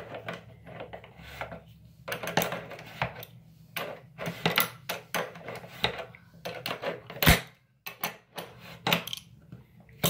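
Adjustable wrench clicking and clanking on a bathroom faucet's cartridge housing nut as it is forced loose, with tools knocking against the sink. A string of irregular clicks and knocks, the sharpest about seven seconds in.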